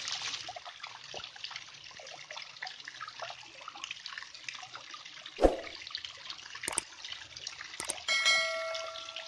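Water trickling and dripping, with one heavier splash about five and a half seconds in. Near the end come two sharp clicks and then a bright ringing chime, the click-and-chime effect of a subscribe button.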